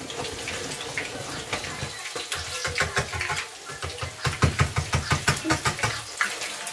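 Akara bean batter being beaten by hand in a plastic bowl, a quick run of strokes about five a second in the second half, over a steady sizzle of palm oil heating in a frying pan.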